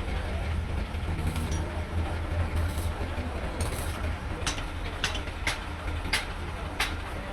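Steady low rumble of a heavy engine idling, with a run of five sharp knocks, roughly half a second to a second apart, in the second half.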